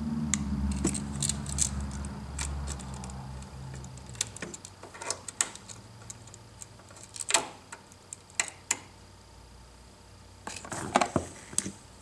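Small metallic clicks and taps as curved copper wire ends are hooked onto the terminal screws of a duplex electrical outlet and the outlet is turned in the hands. A cluster of clicks comes near the end. A low steady hum fades out over the first few seconds.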